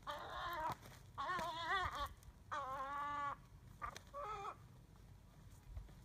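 Gulls calling during a fight: four harsh, wavering cries about half a second to a second long, the third a steadier drawn-out call, ending about four and a half seconds in.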